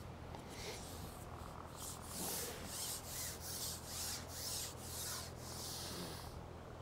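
A run of quick rubbing strokes, about two a second, growing stronger about two seconds in and stopping near the end.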